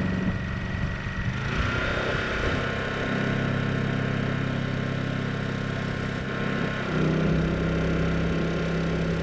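Honda EU2200i inverter generator's single-cylinder engine, running on propane, holding a steady note. About seven seconds in, the note steps up in pitch and gets louder as the engine takes on the RV's electrical load.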